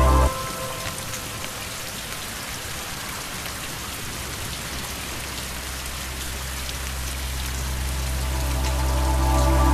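Steady rain falling, with individual drops ticking through the hiss. A low sustained musical drone cuts out just after the start, then swells back in over the last few seconds and stops abruptly at the end.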